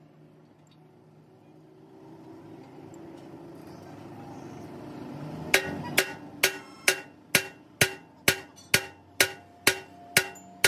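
Heavy hammer striking the steel housing of a truck rear axle, about a dozen ringing metal blows at a steady two a second. They start about halfway in, after a low hum builds up.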